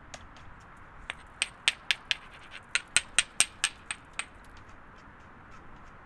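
About a dozen quick, sharp taps and clicks close to the microphone, in an uneven run from about a second in to just past four seconds, over a steady soft hiss.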